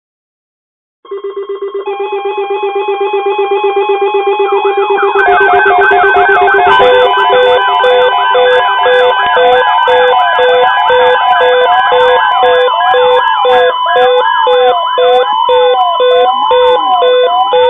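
Layered electronic emergency alert tones heralding a tornado watch broadcast. They start about a second in as pulsing tones, and more tones and beeps pile on as the sound grows louder over the first few seconds. From about halfway, a siren-like rising-and-falling sweep repeats about once a second over steady beeping.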